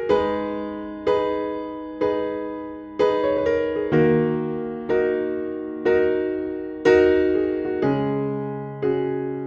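Background music: slow electric-piano chords, one struck about every second and left to ring and fade.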